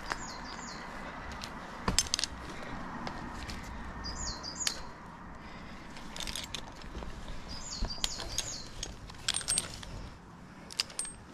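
Sharp metallic clinks and knocks, a few at a time at irregular intervals, with a small bird singing short groups of high curved chirps every few seconds.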